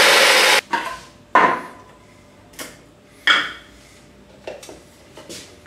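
Rommelsbacher electric spice grinder's blade whirring through whole spices, a short burst that cuts off about half a second in. Then several short knocks and clinks as the lid comes off and the stainless-steel grinding bowl is lifted out.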